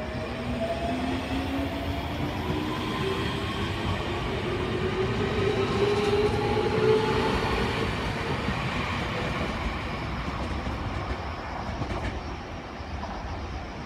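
Keio Inokashira Line electric commuter train pulling away, its traction motors whining in a steadily rising pitch as it picks up speed, over the noise of the wheels on the track. The whine is loudest about halfway through and then fades as the train draws off.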